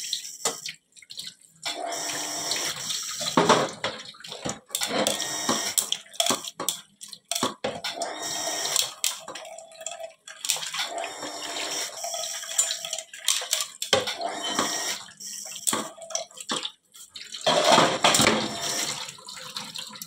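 Tap water running and splashing into a stainless steel kitchen sink as dishes are washed by hand, with a plastic container and a metal pan rinsed and scrubbed under the stream. Short knocks of utensils and dishes against the pan come now and then through the splashing.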